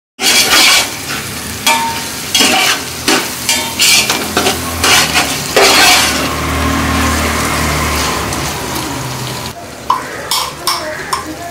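A spoon stirring and scraping tomatoes through onion masala frying in oil in a metal pot: a steady sizzle broken by repeated knocks and scrapes of the spoon against the pot.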